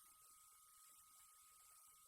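Near silence, with only a faint steady tone.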